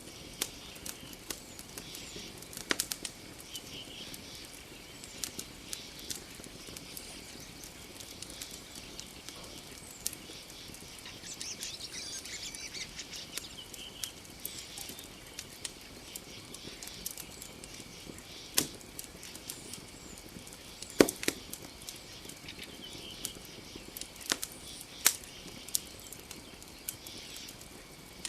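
Campfire crackling, with irregular sharp pops and snaps, the loudest about three-quarters of the way through, over a faint steady high-pitched hum.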